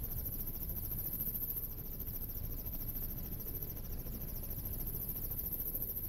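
Helicopter in flight heard from inside the cabin: a steady low rumble with a high, fast-pulsing whine over it.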